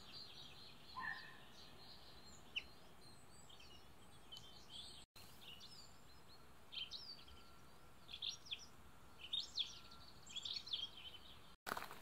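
Small songbirds chirping and trilling in short, scattered phrases over a faint steady hiss. The sound cuts out for an instant twice.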